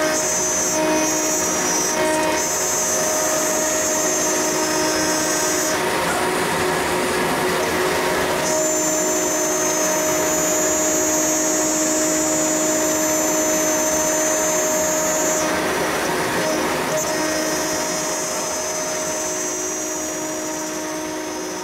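Blue Elephant 1530 ATC CNC router milling an aluminium sheet with a small end mill under coolant: a steady high whine over cutting noise. The high whine drops out briefly twice, and the sound fades near the end.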